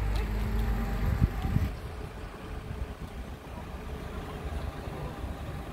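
A motor vehicle engine running with a low hum, which cuts off about a second and a half in, with two short knocks just before it stops; then a quieter background of distant traffic.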